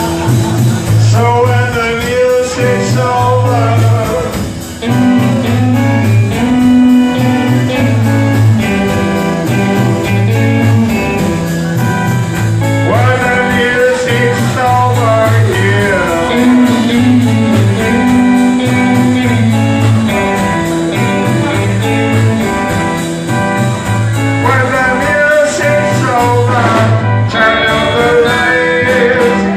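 Live rock band music: a melodic lead line, guitar or voice, over a repeating bass pattern and drums.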